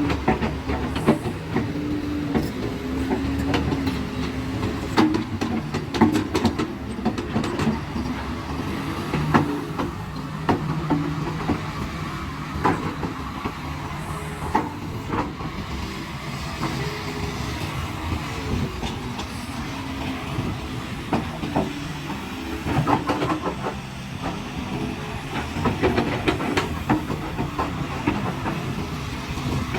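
Hydraulic excavator's diesel engine running under load, its pitch shifting up and down as it works, with frequent sharp knocks and clanks.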